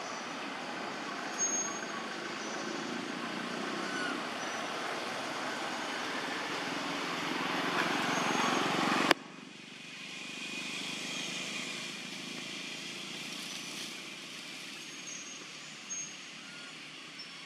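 Steady vehicle-like engine noise that builds up slowly, then stops abruptly with a sharp click about nine seconds in, leaving quieter outdoor background.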